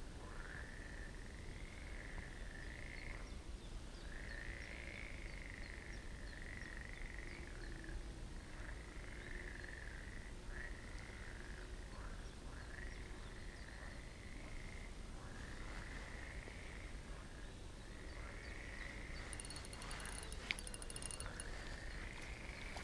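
A chorus of frogs calling continuously, with many calls overlapping into an unbroken, fairly high-pitched wash. A single sharp click sounds near the end.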